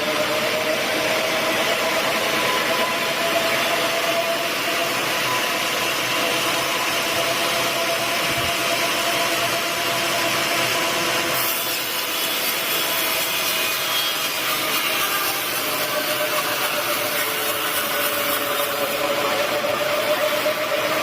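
Sawmill saw cutting steadily through a teak log: a continuous rasping noise with a held, slightly wavering whine from the blade, changing character about halfway through.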